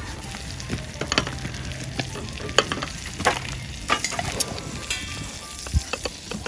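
Lamb chops frying, a steady sizzle broken by irregular sharp pops of spitting fat.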